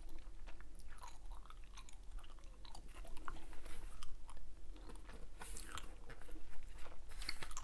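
Hubba Bubba bubble gum being chewed close to a clip-on microphone: irregular short clicks and smacks of the mouth working the gum.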